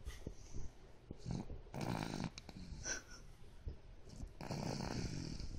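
Slow, steady snoring in deep sleep: two long snores, one about two seconds in and another starting near the end, with a fainter breath before the first.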